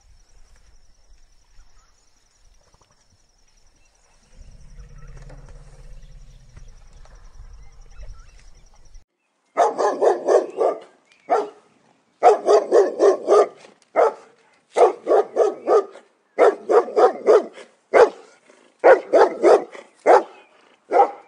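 A dog barking in quick volleys of several barks at a time, with short pauses between volleys, starting about nine seconds in after a stretch of faint background noise.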